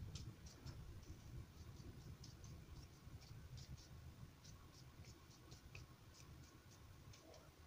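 Faint, irregular light taps and scratches of a filbert paintbrush dabbing watery acrylic paint onto printer paper.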